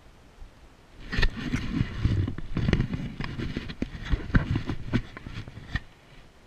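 A horse walking up a rocky trail and stone steps: irregular clops and scrapes of its hooves on rock, with dull thuds, starting about a second in and stopping shortly before the end.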